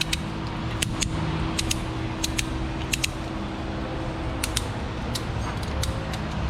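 A ratchet strap being hooked up and ratcheted tight, giving sharp metal clicks at irregular intervals, more than a dozen, over a steady fan hum. The strap is pulling a suspension control arm into line with its mounting holes.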